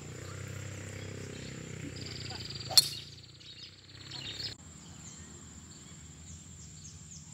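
Golf driver striking a ball off the tee: a single sharp crack a little under three seconds in, over a steady high insect buzz.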